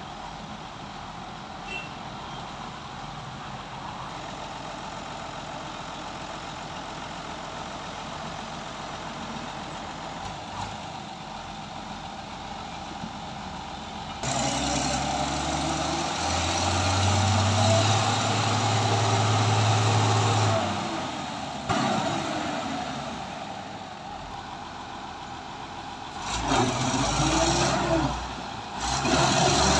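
Heavy diesel engines under a tow: a steady idle, then about halfway through the engine revs up hard and holds for several seconds under load, drops back, and revs up twice more near the end with the pitch rising and falling. The load is a mired truck crane being pulled out of mud.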